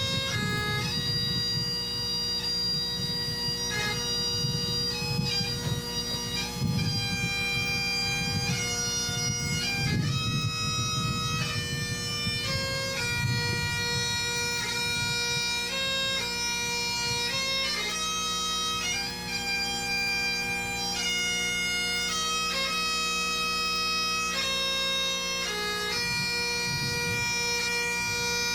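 Bagpipes playing a slow melody over a steady, unbroken drone.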